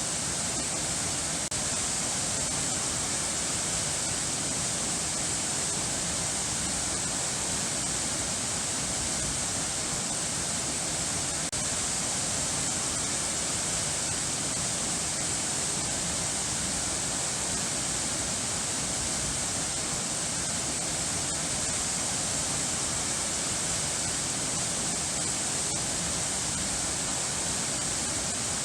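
Steady, unbroken rush of running water, even in level, with no music or other sounds over it.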